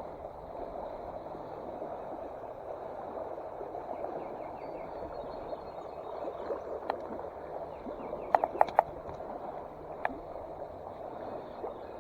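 A mountain stream running steadily, with a few sharp clicks, including a quick run of four about two-thirds of the way through.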